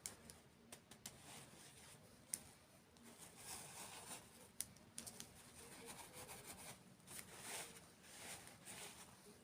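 Faint close-miked eating sounds of desserts: scattered sharp clicks and soft crackly swells of chewing and food handling.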